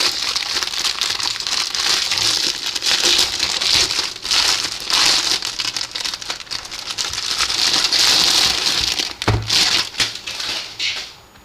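Packaging crinkling and rustling as a new tablet case is unwrapped by hand, with a short knock about nine seconds in.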